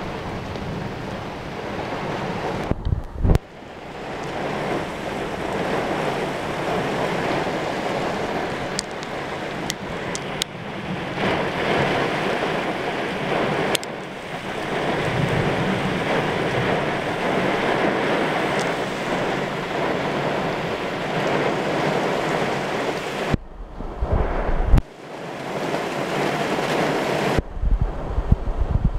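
Heavy thunderstorm rain and strong wind gusts making a loud, steady rushing hiss. Gusts buffet the microphone with low rumbling blasts about three seconds in and again several times near the end.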